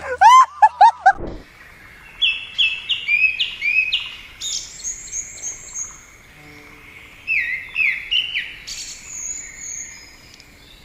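Small songbirds singing in runs of quick, falling chirps with higher thin whistles between them. A short burst of rapid, high vocal sounds comes in the first second.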